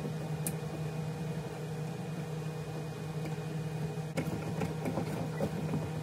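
Steady low machine hum, with a few light clicks and taps from hands working the electrical wiring at a junction box.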